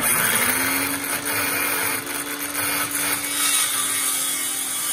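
Handheld circular saw starting up, its motor spinning up quickly, then running steadily as the blade cuts through plywood along a marked line.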